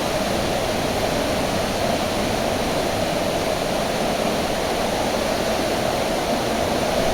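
Rushing water from a jungle waterfall or stream: a steady, unbroken wash of noise.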